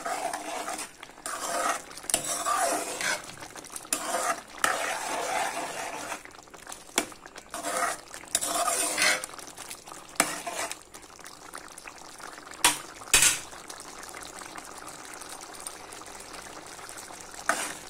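A metal spoon stirring and scraping a thick tomato curry in a pan in irregular strokes, with two sharp clacks of metal on the pan about thirteen seconds in. After that the curry simmers with a faint steady sizzle.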